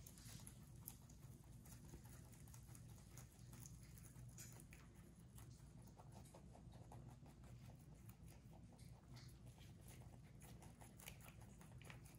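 Two rabbits chewing dandelion leaves and stems: faint, quick, irregular crunching clicks.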